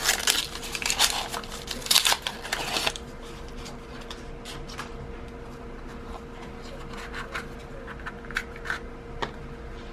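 Packaging rustling and scraping as the box holding a watch deployment clasp is opened by hand, busiest for the first three seconds, then a few light clicks and taps of handling.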